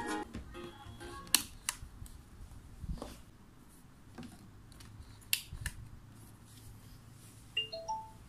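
Music from a compact wall-mount CD player cuts off at the very start as its button is pressed, followed by scattered sharp clicks and light plastic handling as its small remote control is unwrapped. Near the end comes a short run of three quick rising beeps.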